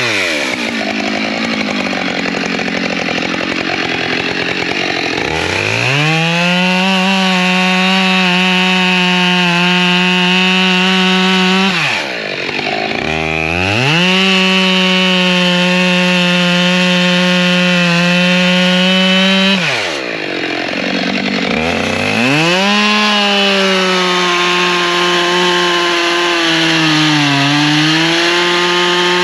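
Two-stroke chainsaw cutting firewood at full throttle, its engine holding a steady high whine. The note is ragged and lower for the first few seconds. Twice, about 12 and 20 seconds in, the throttle drops off briefly and then climbs back to full revs.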